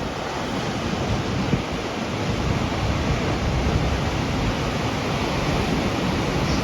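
Ocean surf washing below the bluffs in a steady hiss, with wind buffeting the microphone in low, uneven rumbles.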